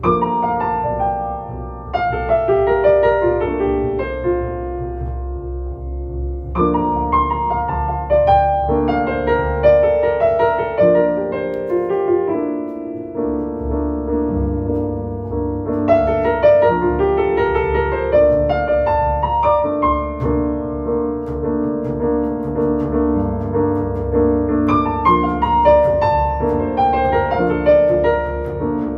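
A jazz duo of piano and double bass playing a ballad. The piano carries chords and melodic runs over a low bass line.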